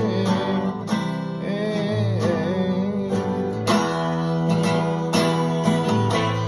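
Music: acoustic guitar strummed in steady chords between sung lines of a song.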